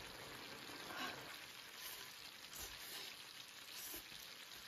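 Iron-pot stew simmering in its wok on the stove: a faint steady sizzle, with a few soft knocks.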